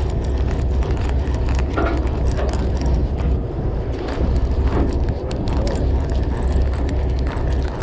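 Steady low rumble of a fishing boat's engine mixed with wind on the microphone, with a few scattered light clicks.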